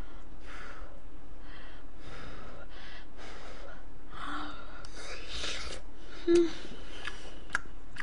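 Close-miked eating sounds: a woman chewing a spoonful of food, with a string of short noisy breaths and mouth noises, a brief hum a little past six seconds, and a few light spoon clicks near the end.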